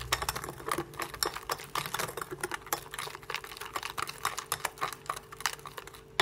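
Whisk beating a thin egg, sugar, oil and milk batter in a glass bowl: rapid, irregular clicking of the wires against the glass with light sloshing. It stops abruptly at the end.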